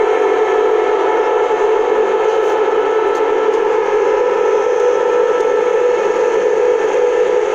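Thousands of conch shells (shankha) blown together in unison: a dense, steady drone of many held tones.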